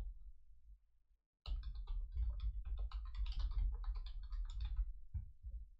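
Typing on a computer keyboard: a rapid run of keystrokes starting about a second and a half in after a brief pause, followed by two separate clicks near the end.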